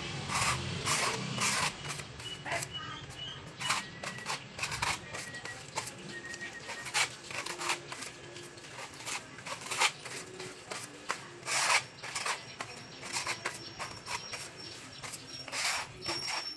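Steel putty knife scraping putty across a rough cement wall in short, irregular strokes, some longer drawn-out sweeps among them.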